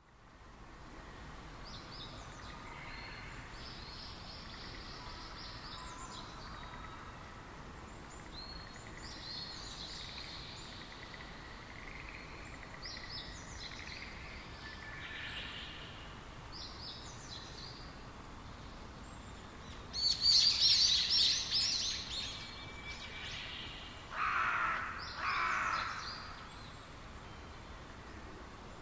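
Forest songbirds chirping in short repeated phrases over a faint steady background hiss. About two-thirds in comes a louder, quicker run of chirps, followed by two lower calls.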